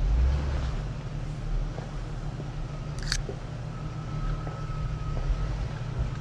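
2020 Jeep Gladiator Rubicon's 3.6-litre V6 running at crawling speed with a steady low rumble, with a bump near the start and scattered small knocks as it works along a rutted trail. A sharp click comes about three seconds in, followed by a thin steady tone.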